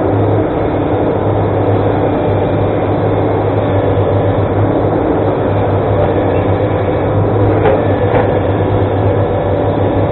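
Excavator diesel engine running steadily under a continuous low drone, with two short knocks about three-quarters of the way through.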